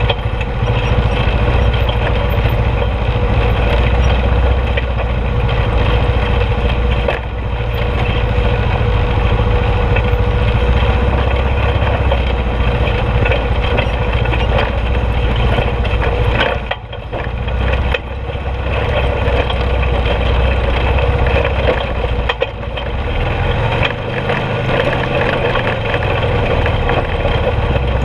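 ATV (four-wheeler) engine running steadily while riding over a rocky dirt trail. It dips briefly three times, as if the throttle eases off for a moment.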